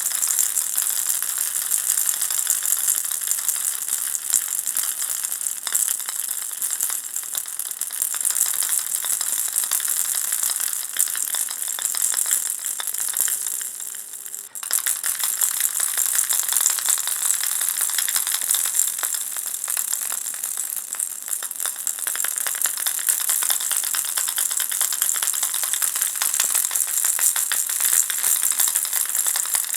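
Baby's ball rattle shaken steadily, a dense, fast rattling with a brief break about halfway through.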